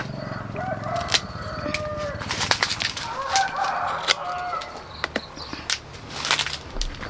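Chickens calling in short pitched phrases, twice: once near the start and again in the middle, amid scattered sharp ticks and rustles.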